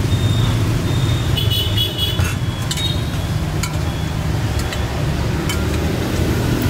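Street traffic: a steady low engine rumble from passing vehicles, with scattered light clicks and knocks.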